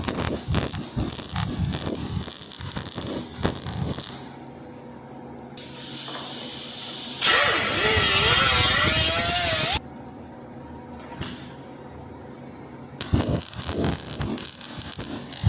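Welding arc crackling and spitting in bursts as short beads are laid, in two runs of a few seconds each. Between them comes a louder steady hiss with a wavering tone that cuts off abruptly near the middle.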